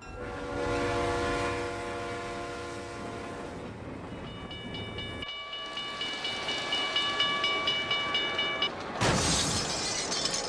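G-gauge model train running on its layout, its sound unit playing a horn for the first three and a half seconds over a low rumble. A higher tone then pulses quickly and evenly for about five seconds, and a loud noisy burst follows near the end.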